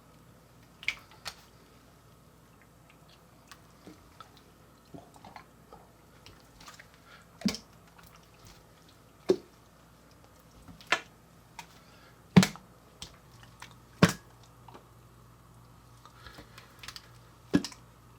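Coca-Cola slime being squeezed and stretched by hand, giving irregular sharp pops and squelches, over the steady low hum of a fan.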